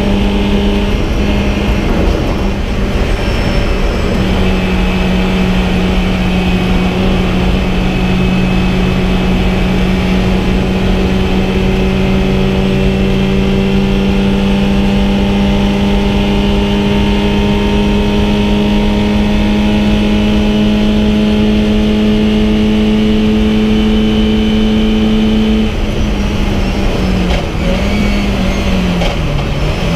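VW Fun Cup race car's engine heard from inside the cockpit over road and wind noise, running hard at a nearly constant high pitch for about twenty seconds after a short break about two seconds in. Near the end the pitch drops in several steps with brief rises, as when braking and downshifting.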